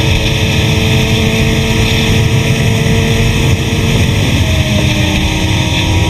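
Suzuki GSX-R1000 sportbike's inline-four engine running at highway cruising speed under heavy wind rumble on the microphone. After about four seconds the engine note changes and falls slightly.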